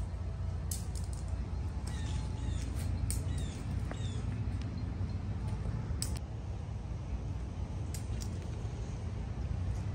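Outdoor park ambience: a steady low wind rumble on the microphone, scattered footsteps on a path strewn with dry fallen leaves, and a few faint bird chirps a couple of seconds in.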